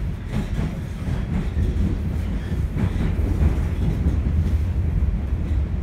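A Toronto Rocket subway train running along the track, heard from inside the car: a steady low rumble with a few faint clicks from the rails.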